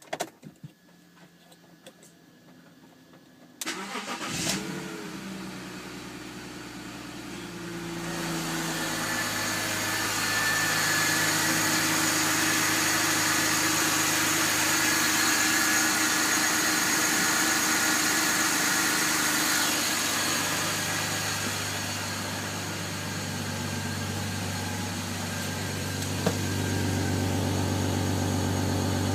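BMW 330 engine cold-started: after a few faint clicks it cranks and catches about four seconds in, flaring up briefly before settling into a fast cold idle. It runs louder and busier from about eight seconds in, then after a click near the end drops into a lower, steadier idle.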